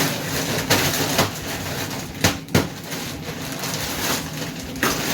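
Plastic bags of frozen vegetables crinkling and knocking as they are packed back into a freezer, with several sharp knocks through the handling.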